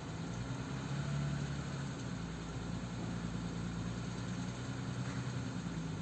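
Audi Q7 3.0 TDI V6 diesel engine idling steadily, with the extraneous crackling noise that the owner is trying to show.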